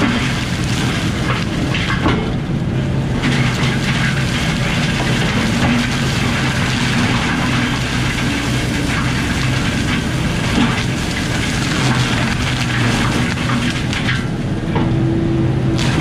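A Kubota SVL95 track loader's diesel engine runs hard under load, driving a hydraulic disc mulcher whose toothed disc is grinding brush and small trees into mulch. The shredding noise eases for about a second near the start and again near the end, while the engine tone holds steady.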